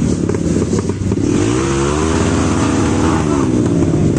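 Dirt bike engines running, with one revving up and falling back in pitch about halfway through.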